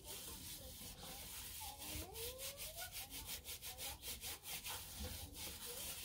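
Brush scrubbing a shower head held down in a bucket of descaling solution, in quick, even back-and-forth strokes of about five a second.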